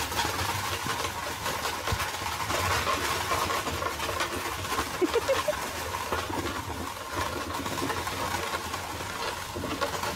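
A pair of carriage horses clip-clopping at a walk on a dirt path, with the carriage wheels rolling along behind them.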